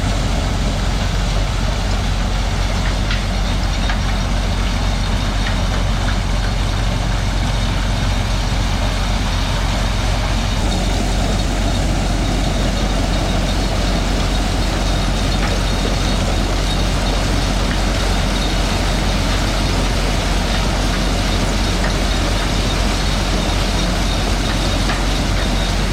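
A 1970s White 1210 corn sheller running steadily while shelling cob corn: a loud, even mechanical din with a deep rumble underneath.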